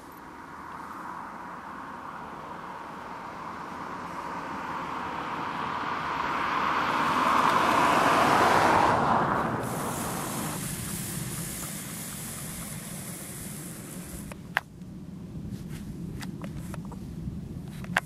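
A car passing by: a steady rush of tyre and engine noise swells for about nine seconds to a peak, then falls away. A low rumble stays behind, broken by a sharp click near the end.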